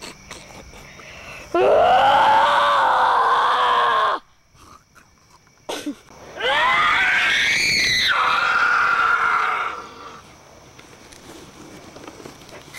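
A person screaming twice, each scream held for about three seconds, the second rising in pitch at its start.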